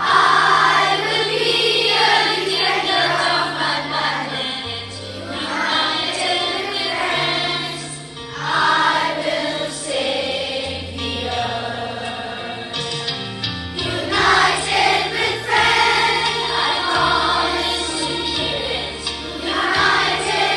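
Children's choir singing a song about Mother Nature in unison, over instrumental accompaniment with held bass notes that change every second or two.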